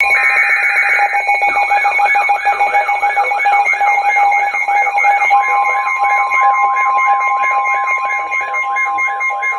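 Emergency Alert System warning tones: the screechy digital header ends in the first second, then a steady alert tone runs with a fast warble repeating about three times a second. A second steady tone joins about five seconds in.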